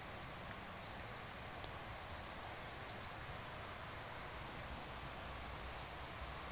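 Steady outdoor background noise with a low rumble, and a few faint high chirps partway through.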